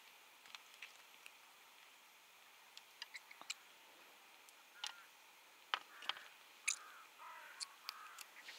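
Faint scattered clicks and taps, with several short bird calls in the second half.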